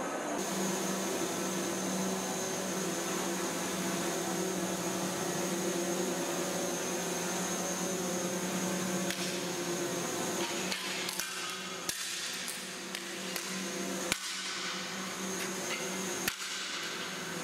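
A steady hum with a high whine runs until near the end. From about nine seconds in, sheets of paper laid over the floor crackle and rustle with sharp clicks under footsteps.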